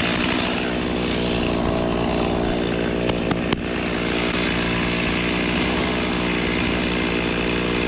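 Chainsaw running steadily at a constant pitch, with a few short knocks about three seconds in.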